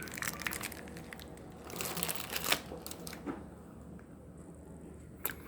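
Granola bar wrapper crinkling and rustling as it is torn open and handled, busiest in the first few seconds and quieter after, with one sharp click near the end.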